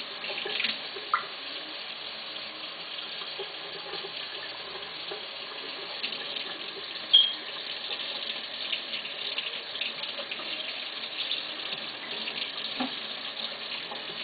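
Tap water running into a sink, with steady splashing as the water is used for washing. A short, high squeak about seven seconds in is the loudest sound.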